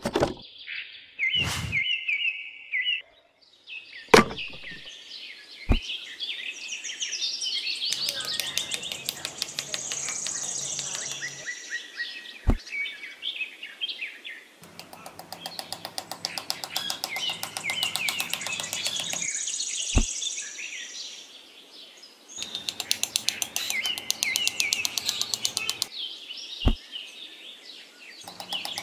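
Birds chirping and tweeting, joined in long stretches by a fast, rhythmic, insect-like trill. About five single sharp taps sound at intervals.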